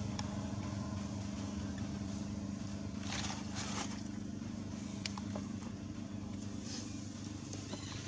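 A steady low mechanical hum, with two short scratchy noises about three seconds in.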